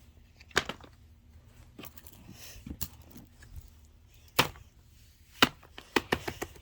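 Several sharp knocks and clicks, the loudest two about a second apart past the middle: fidget toys being handled and set down on a hard surface.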